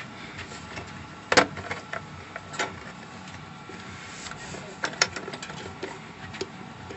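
A few scattered clicks and knocks of metal parts being handled, over a low steady hiss; the sharpest comes about a second and a half in, another near five seconds.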